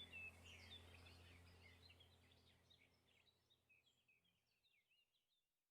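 Near silence: faint birds chirping in the background and a low hum, both fading away over the first few seconds into complete silence.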